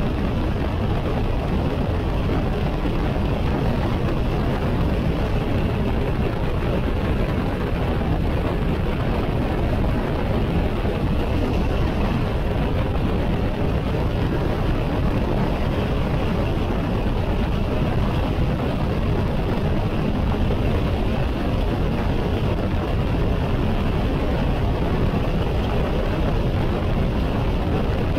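BMW K 1600 GT motorcycle cruising steadily at highway speed: the inline-six engine's low drone under a constant rush of wind, with no change in speed or gear.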